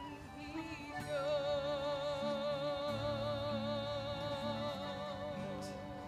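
A woman singing a long held note with wide, even vibrato, starting about a second in and fading near the end, over low sustained instrumental accompaniment notes that shift pitch underneath.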